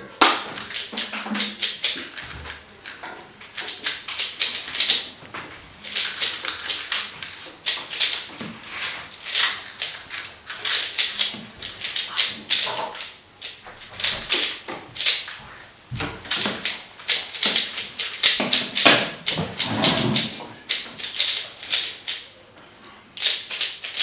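A 3x3 speedcube being turned fast through a timed solve: rapid, irregular plastic clicking and clacking of the layers, in bursts broken by brief pauses.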